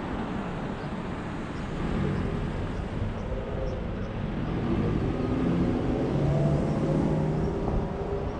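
Car cabin noise inside a Toyota while driving: engine hum and tyre and road noise, swelling a little in the middle as the car turns through an intersection.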